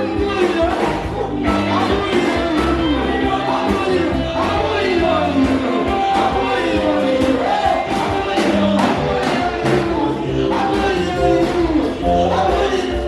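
Worship song: a band plays with a steady drum beat and bass while voices sing the melody.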